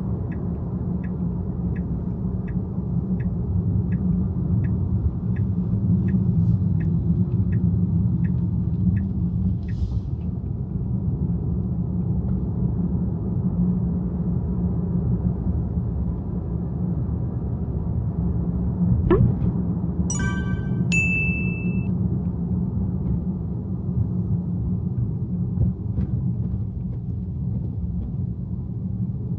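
Steady low road and engine rumble heard from inside a moving car. For the first ten seconds or so a turn indicator ticks about one and a half times a second. About two-thirds of the way through there is a quick rising sweep followed by a few short high beeps.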